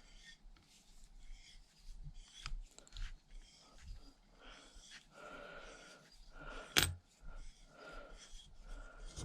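Scattered small metallic clicks and scrapes of a bolt threaded into a stuck rocker-arm shaft in a Honda Z50 cylinder head, being worked and pulled by hand. A single sharp click comes near the end.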